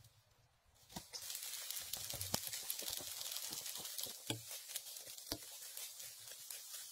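Footsteps crunching and rustling through a thick layer of dry fallen leaves, irregular crackles over a steady hiss of open air that comes in suddenly about a second in.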